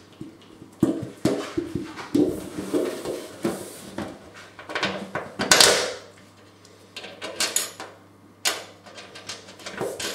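Irregular knocks, clinks and scrapes of hands working on a satellite dish and its metal bracket, as washers and nuts are put on the bolts and hand-tightened. The loudest is a scrape about halfway through.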